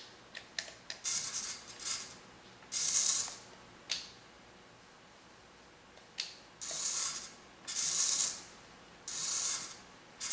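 Small hobby servo whirring in a string of short bursts, about half a second each, as it swings back and forth under joystick control, with a few light clicks near the start and a pause of about two seconds in the middle.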